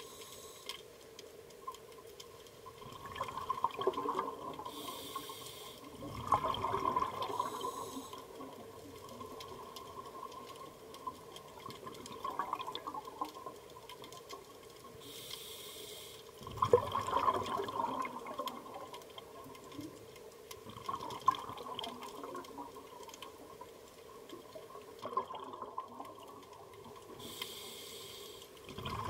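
Scuba diver's regulator breathing heard underwater: a hiss of inhalation followed soon after by a loud burst of exhaled bubbles, a few times over, with smaller gurgles between and a faint steady hum underneath.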